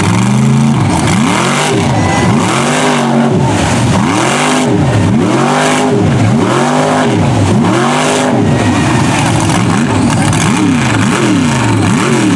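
Chevy mud truck's engine revved hard and let fall again, over and over about once a second, while its paddle tires spin and throw mud in a deep pit.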